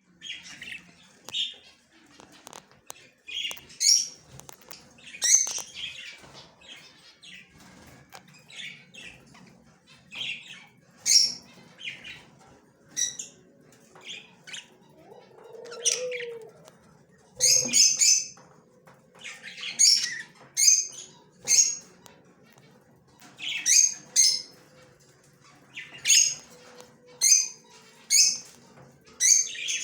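Yellow male budgerigar chirping: a string of short, high, sharp chirps, one every second or so, some coming in quick pairs.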